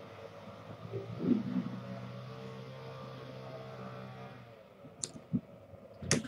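A low steady hum that cuts out about four and a half seconds in, then a few sharp clicks near the end, the loudest as a person comes in carrying a plastic tub.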